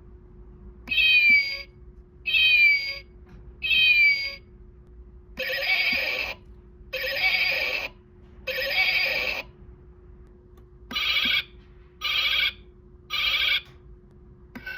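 Animal-sound wall clock's speaker playing recorded animal calls in sets of three: three cat meows falling in pitch, then three longer calls, then three shorter ones.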